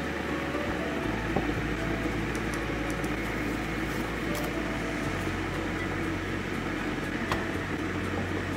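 Steady whirring hum of a running appliance, with a few faint clicks.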